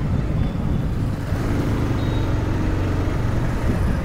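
Bajaj Pulsar 220F's single-cylinder engine running steadily while riding in town traffic, mixed with wind rushing over the camera's microphone.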